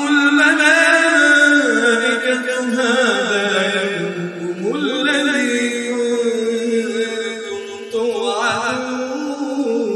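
A man's voice reciting the Quran in melodic tajweed style, drawing out long, held notes with wavering ornaments and gliding rises and falls in pitch.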